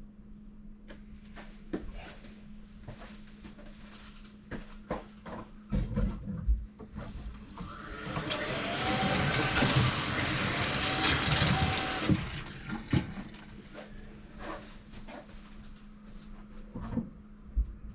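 Water rushing for about four seconds, starting about eight seconds in, from a newly installed washing-machine supply valve with the water just turned back on. Scattered knocks and clicks of handling come before and after it.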